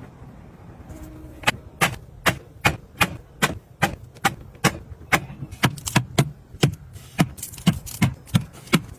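A steady, evenly spaced run of sharp clicks or taps, about two and a half a second, starting about a second and a half in.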